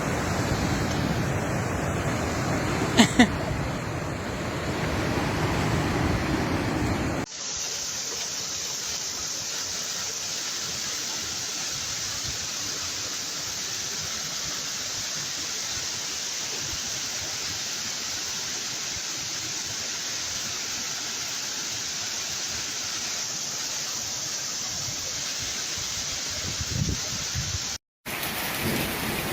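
Rushing floodwater in a wadi: a steady rush of water, with two short knocks about three seconds in. About seven seconds in it cuts to a steadier, hissier rush of water.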